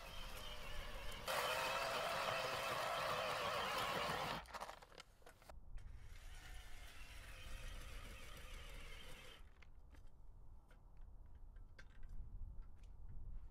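Handheld powered earth auger boring into dry, sandy soil: the motor runs with a gritty grinding in two stretches of a few seconds each, the first louder. Near the end come scattered light steps and clicks.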